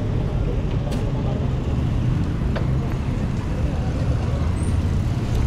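Steady low rumble of wind and road noise from a camera on a moving bicycle, with motor traffic alongside. Two short sharp clicks, about one and two and a half seconds in.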